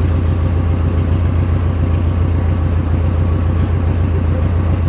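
Old JCB backhoe loader's diesel engine idling steadily with a deep, even beat.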